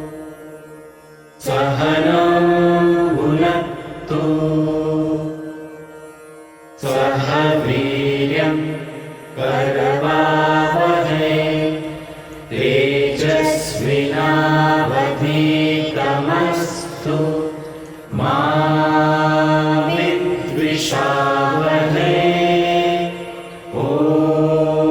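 Chanted mantra: voices singing long, drawn-out phrases over a steady low drone, with short pauses between phrases.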